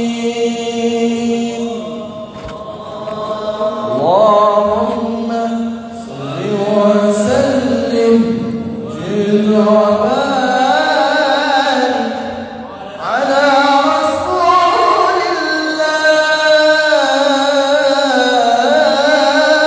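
Melodic Qur'an recitation (tilawah) by a male qari into a microphone: long, held phrases sliding between pitches with quavering trills. It pauses briefly for breath twice, about two and a half and twelve and a half seconds in.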